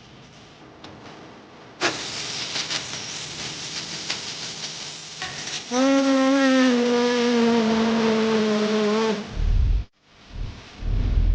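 A loud hiss with crackles starts suddenly. Partway through, a steady whistling tone with many overtones joins it, sinking a little in pitch, and both stop together. Deep booms follow near the end.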